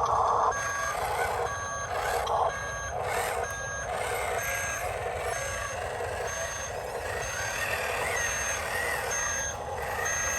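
Electronic reversing beeper of a remote-control toy construction truck, beeping at an even pace about once a second over the whir of its small electric motors.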